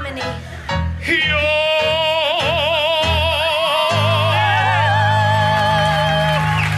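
A woman and a man singing a long held 'ooh' in harmony, with strong vibrato. A high voice begins about a second in, and a low note joins about four seconds in.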